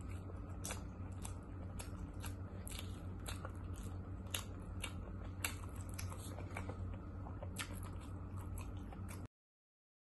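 Close-up food-handling and eating sounds: irregular clicks and crackles of plastic-gloved hands picking through boiled shrimp and corn in a plastic bowl, over a steady low hum. The sound cuts off abruptly to silence near the end.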